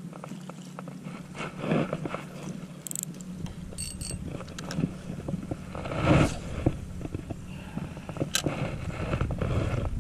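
Rustling and scraping of a shirt sleeve and hands against a GoPro's microphone, with scattered sharp clicks. A low wind rumble on the microphone comes in about three seconds in.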